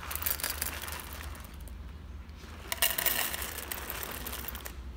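Dry cat kibble poured from a plastic bag into stainless steel bowls, many small pieces rattling against the metal, with the bag crinkling. It comes in two pours, the second starting about three seconds in.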